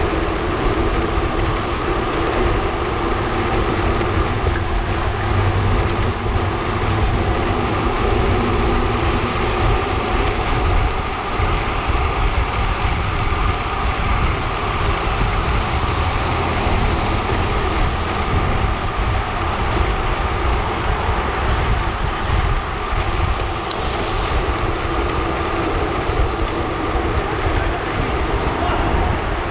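Steady rush of wind on a handlebar-mounted camera's microphone, with road bike tyre noise, while riding in a fast group.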